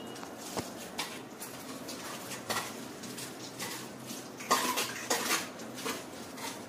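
Stainless steel bowl clinking and knocking, with water splashing as soaked soya chunks are pressed and squeezed by hand. The loudest clatter comes about four and a half seconds in.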